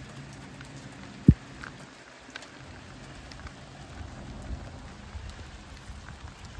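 Light rain with scattered drops ticking, over a low steady hum that stops about two seconds in. A single sharp low thump comes about a second in, and a low rumble sets in about four seconds in.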